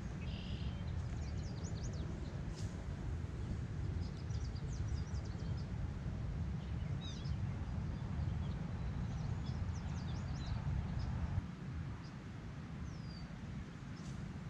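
Wind noise on the microphone, a steady low haze that eases about eleven seconds in, with small birds chirping in short series of high notes and a falling whistled note near the end.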